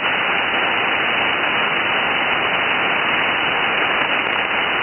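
Steady hiss of band noise from an SDR receiver tuned to the 6-metre band in upper-sideband mode, with no station coming through. The hiss is narrow and muffled, cut off sharply above about 3 kHz by the receiver's sideband filter.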